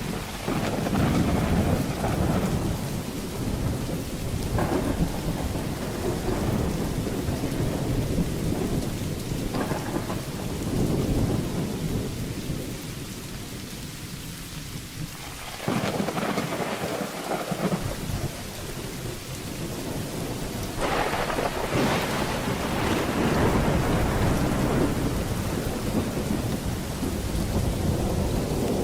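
Thunderstorm: rain falling steadily under repeated rolls of thunder. The rumbling dies down briefly in the middle, then a sudden loud peal breaks in just past halfway and another rolls in about three-quarters through.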